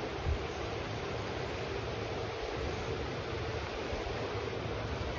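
Steady rush of flowing river water below a running dam spillway, with a low rumble underneath.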